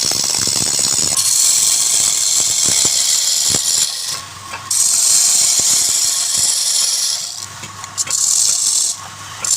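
Wood lathe turning with a cutting tool shaving the spinning wood: a loud, steady hissing cut that breaks off briefly three times as the tool leaves the wood, leaving a faint motor hum in the pauses.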